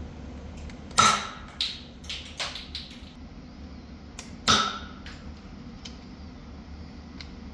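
Nerf Elite 2.0 Volt blaster firing twice, about three and a half seconds apart, each a sharp snap with a short ring. Several lighter clicks come between the two shots.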